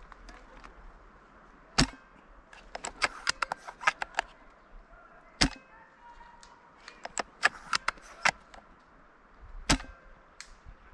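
Novritsch SSG10 A3 bolt-action airsoft sniper rifle firing three sharp shots a few seconds apart, with quick clusters of lighter clicks and clatters between the shots.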